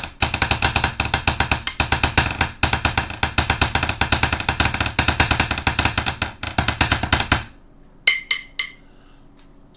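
A pair of 5B hickory drumsticks drummed on a hard surface in a fast, steady run of strokes, several a second, stopping about seven and a half seconds in, followed by three separate lighter taps.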